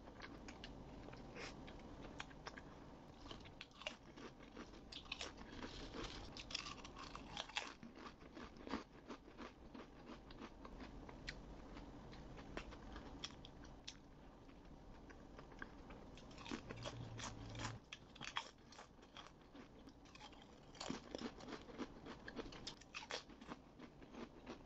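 A person eating close to a microphone: chewing and biting with many sharp, crisp crunches at an irregular pace, coming in denser runs several times.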